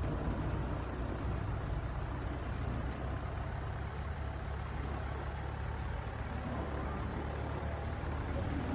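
Steady low engine rumble, like an idling truck, with an even hiss over it, most likely the RC crane truck's running sound.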